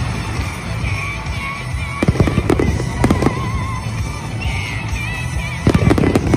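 Fireworks display: aerial shells banging and crackling in clusters, about two seconds in and again near the end, over a steady low rumble, with music playing.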